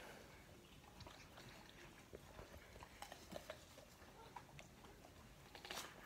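A pit bull and his puppy chewing and crunching on a raw, partly frozen barracuda: faint scattered crunches and clicks, with a louder crunch near the end.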